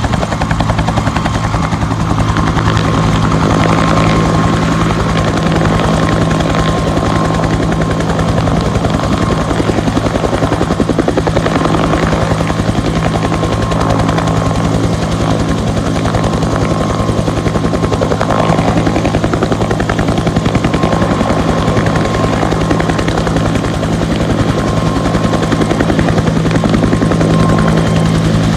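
Firefighting helicopter's rotor beating steadily and loudly in fast, even pulses, with a thin steady high tone running underneath.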